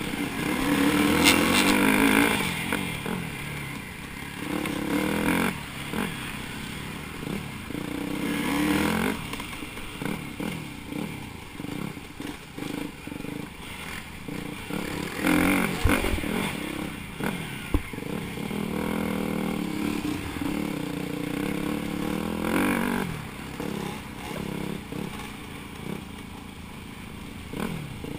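Dirt bike engines on a trail ride: the nearest bike's engine revs up and eases off again and again with the throttle, other dirt bikes running close by. Two sharp knocks come around the middle.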